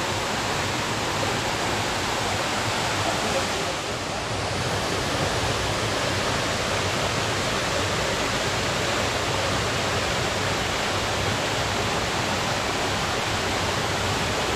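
Waterfall rushing: a steady, dense roar of falling water, dipping briefly about four seconds in.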